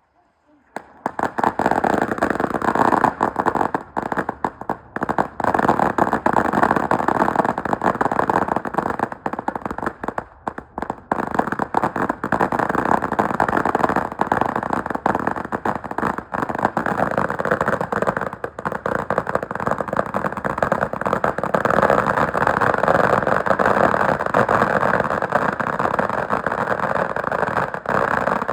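Firework going off with a dense, continuous crackle of rapid pops, starting suddenly about a second in and lasting to the end.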